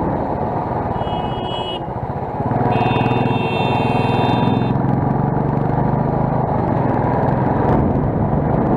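Motorcycle engine running, getting louder about two and a half seconds in. Two high tones sound over it, a short one about a second in and a longer one of about two seconds just after.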